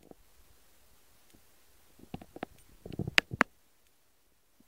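A few light taps and clicks in a quiet room: a short run about two seconds in, then a denser patch a little after three seconds that ends in two sharp clicks.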